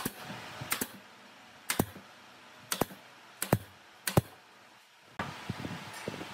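Pneumatic nail gun firing nails into pine boards: six sharp shots about a second apart, some heard as a quick double crack. After about five seconds only faint knocks of wood being handled.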